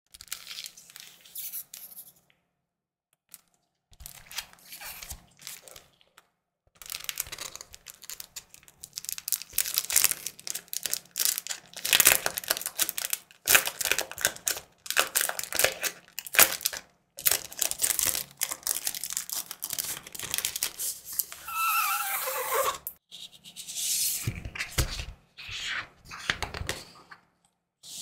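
Thin clear plastic sleeves crinkling and peeling as a paper guide card and sticker sheet are slid out and unwrapped: irregular rustles with short pauses, faint at first and busier from a few seconds in, with a brief squeaky rub of the film about three-quarters of the way through.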